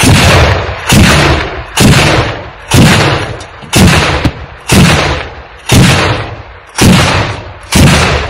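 57-mm S-60 automatic anti-aircraft gun firing a steady run of single heavy shots, about one a second, nine in all. Each shot is a sharp report that booms and dies away before the next.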